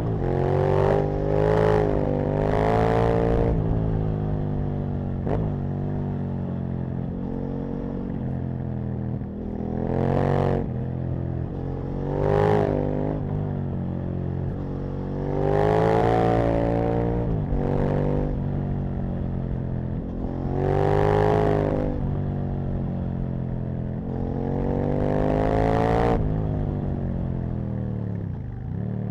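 Aprilia RSV Mille's 60° V-twin engine pulling hard and backing off repeatedly, its pitch climbing with each surge and dropping away. Three quick rises in the first few seconds, then several longer pulls.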